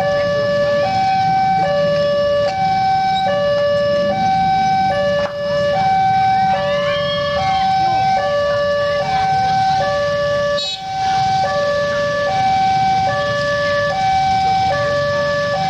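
Railway level-crossing warning alarm sounding a steady two-tone high-low signal, each tone lasting about two-thirds of a second, warning that a train is approaching. Motorcycle and car engines rumble underneath.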